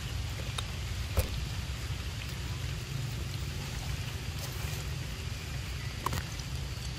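A steady low rumble, with a sharp click about a second in and another about six seconds in.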